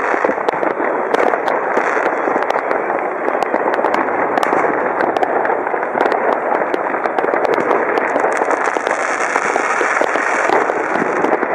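Fireworks going off: many sharp bangs and cracks over a steady, dense crackle.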